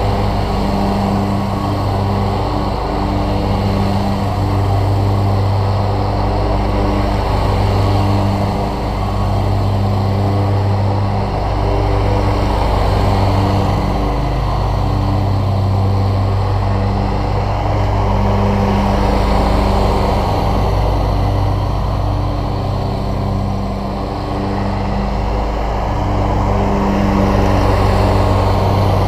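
Scag Cheetah zero-turn mower running steadily while cutting grass, its engine and blades growing louder and fainter as it circles, loudest near the end as it passes close.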